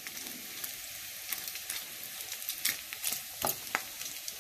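Bacon frying in a skillet: a steady sizzle of hot fat with scattered crackles and pops, several louder pops in the second half.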